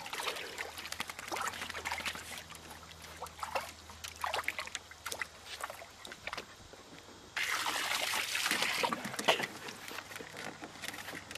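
Shallow water in a tub splashing and sloshing as a small dachshund wades and paws at it, with a garden hose trickling into the water. About seven seconds in, a louder rush of water lasts a second and a half.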